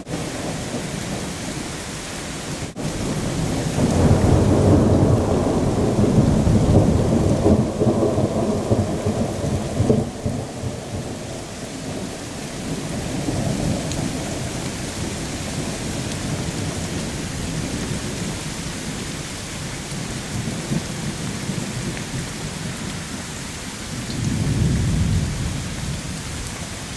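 Heavy thunderstorm rain hissing steadily, with thunder rolling in a long low rumble about four seconds in and again more briefly near the end.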